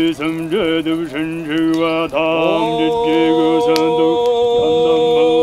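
A man chanting in long, drawn-out held notes, stepping up to a higher sustained note about two seconds in.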